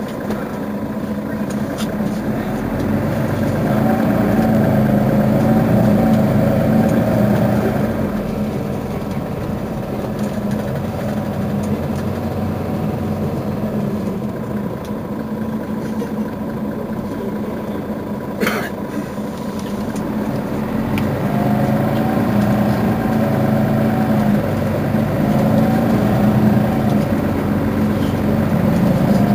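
Mercedes-Benz Citaro Facelift city bus standing at a stop with its engine idling. The engine swells louder twice, from about three seconds in and again in the last third. A single short sharp sound comes about two-thirds of the way through.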